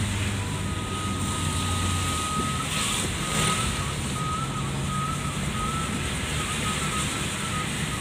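Vehicle cabin noise while driving on a rain-wet road: a steady engine hum that shifts up in pitch about two seconds in, with tyre and rain hiss, and a brief swish around three seconds in as the windscreen wipers sweep. A thin high tone runs through it, wavering later on.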